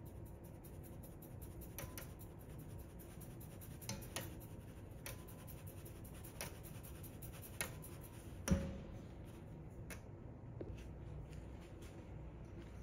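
Fine wire-mesh sieve being shaken and tapped over a stainless steel bowl, a rapid run of light ticks and scratching as the flour sifts through. Several knocks of the sieve against the bowl stand out, the loudest about two-thirds of the way through with a short metallic ring.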